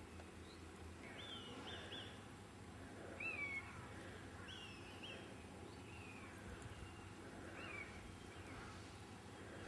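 Faint, high-pitched animal calls: a string of short chirps, each falling in pitch, the loudest about three seconds in, over low background noise.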